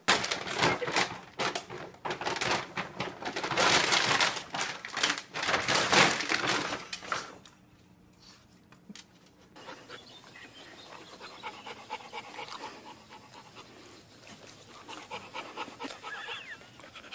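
A puppy with its head in a large plastic dog food bag: fast, noisy rustling of the bag mixed with panting for about seven seconds, then much quieter.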